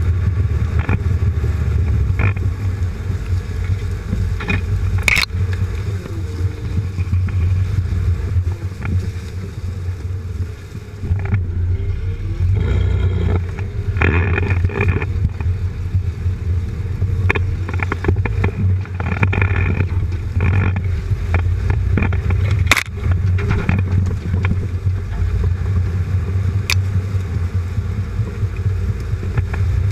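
Jeep Cherokee XJ crawling slowly over a forest trail, heard from beneath the chassis: a steady low rumble of engine and drivetrain, with tyres rolling over leaves and sticks. Sharp knocks sound now and then as the long-arm suspension articulates and the underside meets the ground, clearest about 5 and 23 seconds in.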